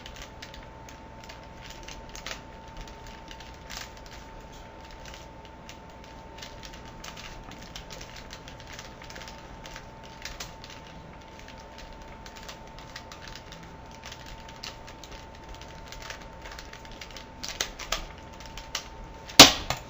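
Rubik's cube being turned rapidly in the hands: irregular quick plastic clicks and rattles as the layers twist during a speed solve. Near the end there is a single loud sharp knock.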